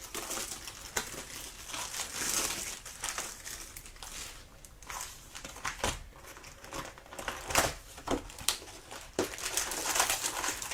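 Foil wrappers of Topps Chrome baseball card packs crinkling and tearing as they are opened. Many sharp snaps and rustles come from handling the wrappers and cards.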